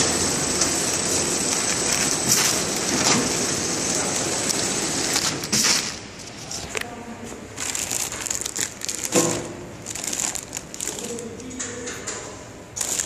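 A flow-wrap pillow packing machine runs with a steady mechanical hiss, a constant high whine and a few sharp clicks. About six seconds in the machine noise falls away, and what remains is intermittent crinkling of the clear plastic film bags around the packed vegetables.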